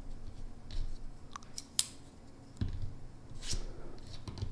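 Knafs Lander folding pocket knives being opened and handled: several sharp metallic clicks of blades swinging open and locking, the loudest about three and a half seconds in as the black clutch-lock Lander 3 is opened, with a few soft knocks.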